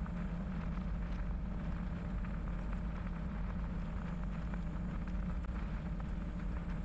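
Bicycle tyres rolling steadily over a wet crushed-limestone trail: a continuous gritty hiss full of small ticks, with a steady low rumble underneath.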